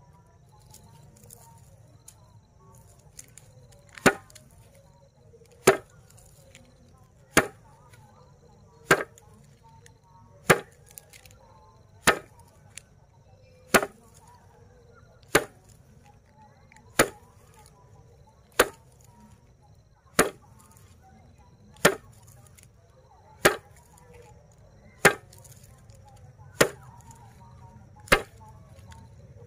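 Bundle of dried grass stalks being beaten down onto a flat board, threshing the seed heads. Sharp slaps come in a steady rhythm about every second and a half, starting about four seconds in, around sixteen strikes in all.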